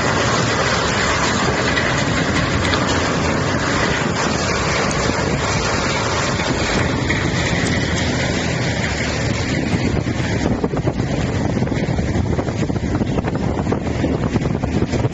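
Tub grinder running, a steady heavy engine drone under dense grinding noise as it works through stumps and tree roots.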